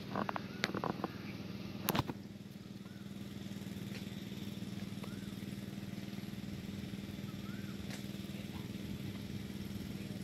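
A small engine or motor running steadily with a low hum. A few sharp knocks and clicks come in the first two seconds.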